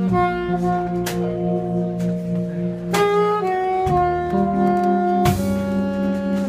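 Saxophone playing a jazz melody of long held notes, with the band accompanying underneath and a few sharp strokes from the drums.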